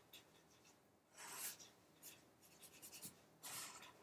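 Faint scratching of a marker drawing on paper: one longer stroke about a second in, a run of short quick strokes, then another stroke near the end.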